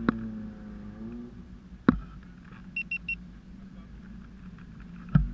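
Racing sidecar outfit's engine idling steadily, its pitch wavering in the first second. Three sharp knocks, and a quick run of three short high beeps about halfway through.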